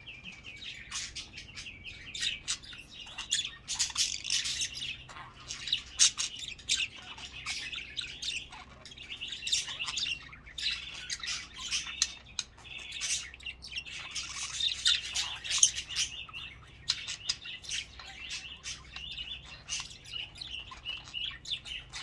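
Budgerigars chattering: a continuous stream of quick chirps, squeaks and warbling trills with no pause.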